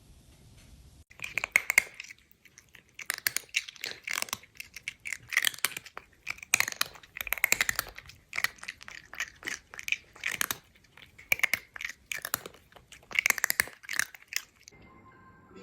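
A cat crunching dry food, with bursts of crisp chewing about once a second.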